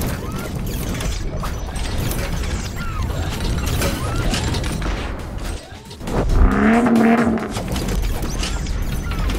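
Intro sound effects for an animated car assembling itself: a dense run of mechanical clicking, ratcheting and clanking over a deep rumble. It dips just before six seconds in, then comes back louder with a pitched swell.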